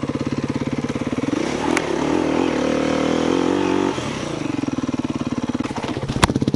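Dirt bike engine running with a fast, even beat. It revs up from about a second and a half in, holds for a couple of seconds, then drops back to its pulsing idle. Near the end come a few sharp knocks and one loud crack as the bike goes down on its side.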